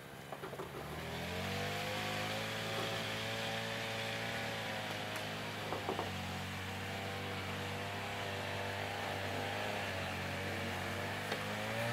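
An engine starts up about a second in, rising briefly in pitch as it comes up to speed, then runs at a steady speed. A few light knocks come around the middle.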